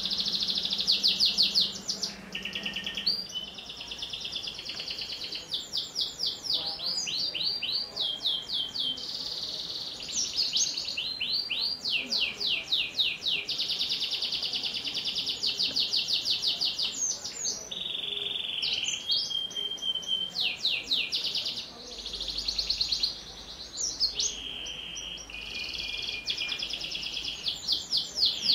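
White domestic canary singing a long, unbroken, high-pitched song of rapid trills and fast repeated notes, with a few short steady whistled notes between the rolls.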